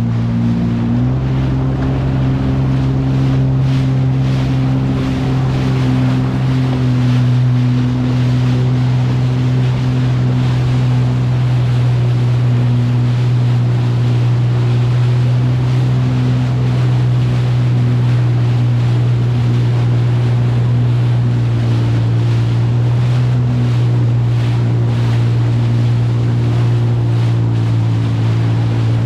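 Personal watercraft engine running steadily at cruising speed, its note stepping up slightly about a second in, over rushing water spray and wind on the microphone.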